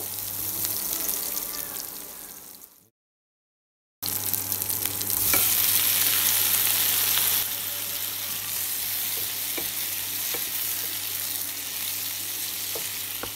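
Onions and then chopped tomatoes sizzling as they fry in a nonstick wok, stirred with a wooden spatula, with occasional scrapes of the spatula against the pan. The sizzle cuts off about 3 s in, returns a second later louder for a few seconds, then settles to a steady sizzle over a low hum.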